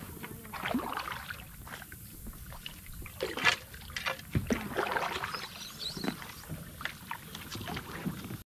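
Kayak being paddled along a creek: irregular splashes and swishes of the paddle blades in the water, with small knocks. The sound cuts off abruptly near the end.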